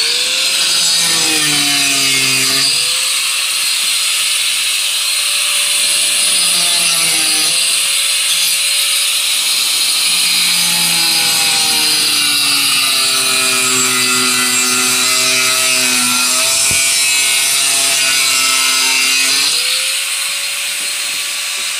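Electric angle grinder running continuously and grinding into wooden boat-frame timber. Its motor whine sags in pitch each time the disc is pressed into the wood and climbs back when it is eased off, several times over.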